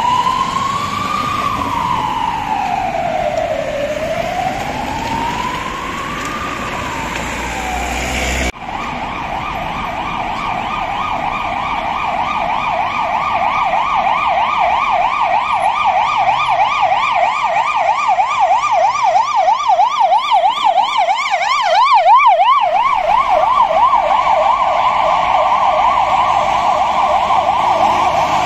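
Ambulance siren in a slow wail, rising and falling about every five seconds, broken off abruptly about eight seconds in; then a second ambulance's siren in a rapid yelp, growing louder as it approaches.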